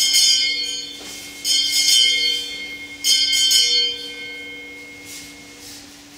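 Small altar bells rung three times, about a second and a half apart, each ring a bright jangle of several high bell tones that fades away. A low steady tone is held underneath.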